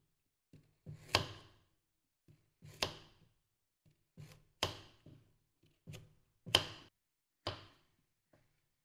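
Kitchen knife slicing a carrot into rounds on a thick wooden chopping block: a sharp knock of the blade hitting the board with each cut, about one a second and unevenly spaced, some with a faint crunch of the carrot just before.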